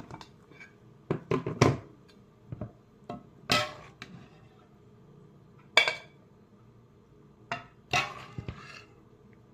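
Kitchenware clatter: a ladle or spoon knocking against a pot and glass Pyrex containers while soup is portioned out. A quick cluster of knocks comes a little over a second in, then single ringing clinks about three and a half, six and eight seconds in.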